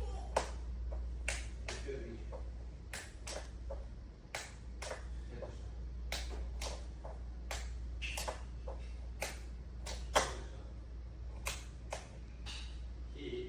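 Irregular sharp clicks and taps, about one or two a second, over a steady low hum.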